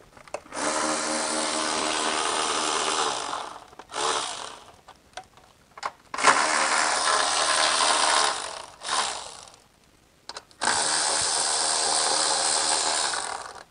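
Cordless ratchet running in three bursts of about three seconds each, a steady motor whine, with short clicks between: spinning the nut off the stud that holds the electronics box.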